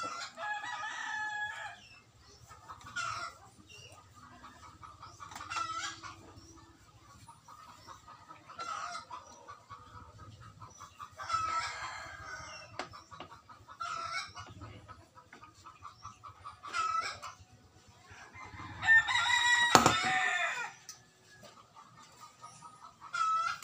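Chickens clucking in short calls every couple of seconds, with a rooster crowing once near the end, the loudest sound.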